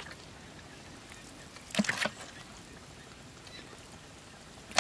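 Fish being grabbed by hand from a shallow muddy puddle: a short wet slap about two seconds in and a sharp knock at the very end, over a quiet outdoor background.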